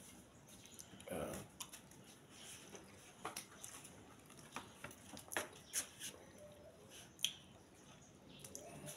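A person eating soft amala and fish stew by hand: quiet chewing with scattered wet lip smacks and clicks, and a short hum of the voice about a second in.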